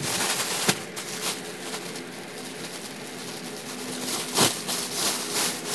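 Clear plastic bag crinkling and rustling as it is handled and pulled open, in irregular crackles with one sharper crackle about four and a half seconds in.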